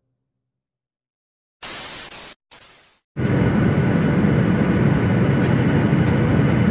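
Dead silence, then two short bursts of hiss, then from about three seconds in a loud, steady low rumble of travel noise heard from inside a moving vehicle.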